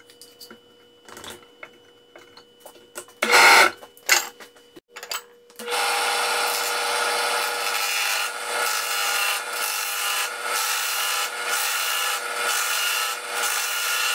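A chisel cutting into a wooden block spinning in a drill press set up as a lathe: a steady, loud scraping and shaving noise starting about five seconds in, over the faint steady hum of the drill press motor. Before the cut, a few small clicks and one short loud clatter as the tools are handled.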